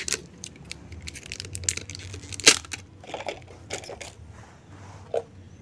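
Handling noise as a new metal spin-on fuel filter is turned over in the hands, with plastic wrapping crinkling and scattered light clicks. One sharper knock comes about two and a half seconds in.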